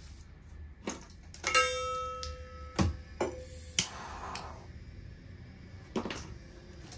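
A stainless-steel bowl is knocked and rings with a clear metallic tone that fades over a second or two. A lighter then clicks a few times and briefly hisses as it lights a Vaseline-smeared cotton ball in the bowl. Near the end there is a single knock.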